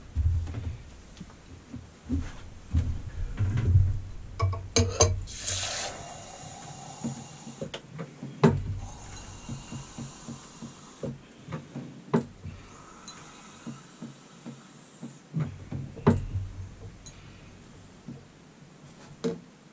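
A few knocks and bumps, then a pint of ale drawn from a hand-pulled beer engine: beer hissing and frothing out of the swan-neck spout into a pint glass, with a knock from the pump at each pull, about every four seconds.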